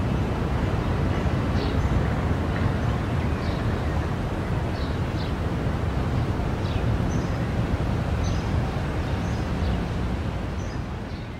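Steady outdoor rushing noise, heavy in the low end, with short bird chirps every second or so; it fades out near the end.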